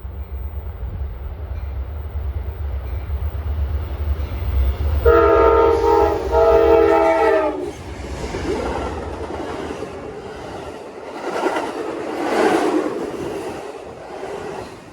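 Amtrak passenger train's diesel locomotive rumbling as it approaches, then sounding two horn blasts about five seconds in, the second longer and falling in pitch at its end as the locomotive passes. The passenger cars then roll by, the wheel noise rising and falling with a clickety-clack over the rails.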